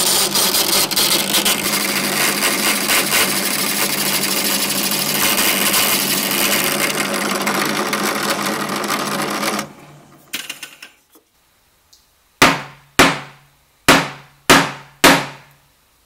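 Drill press running, its bit cutting down the end of a copper ferrule on a wooden screwdriver handle to level it, with a dense grinding noise over the motor hum. About ten seconds in it is switched off and winds down. Five sharp knocks about half a second apart follow near the end.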